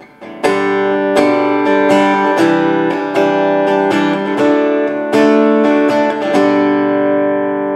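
Donner Hush I silent travel guitar being played: about a dozen chords struck at a steady pace, each ringing on into the next. The last one, near six and a half seconds in, is left to ring out and fade.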